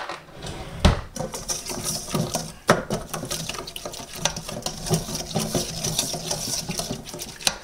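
A spoon stirring a thick ketchup, brown sugar and Worcestershire sauce mixture in a stainless steel mixing bowl, scraping and clinking against the metal. Sharper knocks about a second in and just before three seconds.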